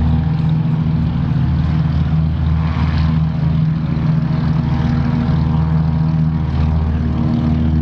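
Lisunov Li-2, the Soviet-built DC-3, on its takeoff run, its two nine-cylinder radial engines at full power with a loud, steady propeller drone.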